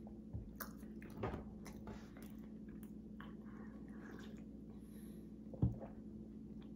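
Close-up chewing and biting sounds of a person eating waffle, with short wet clicks and crunches. A single sharp knock about five and a half seconds in, as a small drink carton is set down on the table.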